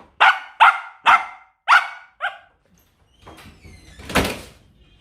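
A pet dog barking five times in quick succession, short sharp barks, while begging for more food. About four seconds in there is one brief breathy rushing noise.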